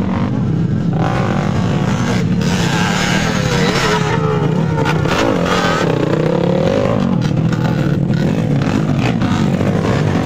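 Motocross motorcycle engines running and revving on the track, the pitch rising and falling as a bike works over the jump.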